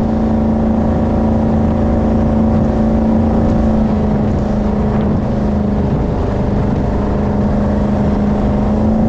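Jet boat engine running steadily at cruising speed, a loud, even drone that wavers briefly about five seconds in.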